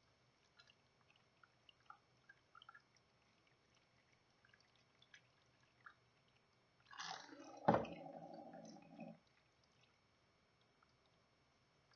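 Faint dripping and small splashes of rubbing alcohol running off a circuit board into a tub of liquid as it is squirted from a plastic wash bottle to dissolve the photoresist. About seven seconds in comes a louder rustling scrape with one sharp click, lasting about two seconds.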